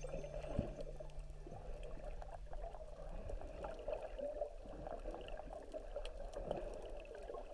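Underwater sound picked up by a GoPro in its waterproof housing: muffled water movement with an uneven crackle and scattered faint clicks.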